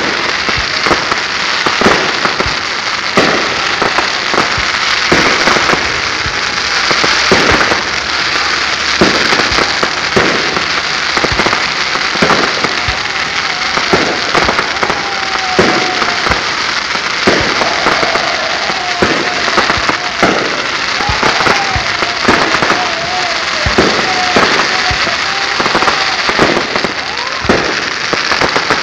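Aerial fireworks bursting in quick succession: a steady stream of bangs, several a second, over a constant hiss.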